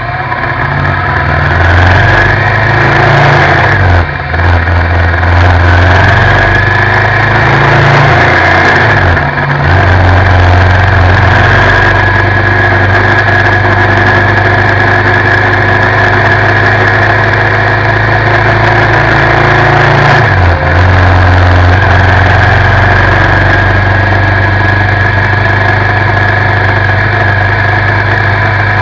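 Suzuki V-Strom 650's V-twin engine picking up speed, then running steadily at road speed. The engine note breaks briefly three times, about 4, 9 and 20 seconds in.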